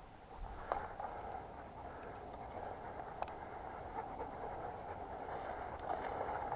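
Steady rustling of footsteps through dry grass, with a couple of light clicks.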